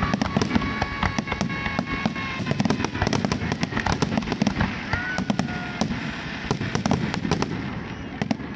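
Fireworks display: many shells bursting in quick succession, sharp bangs and crackling over a continuous low rumble. It thins out and grows quieter near the end.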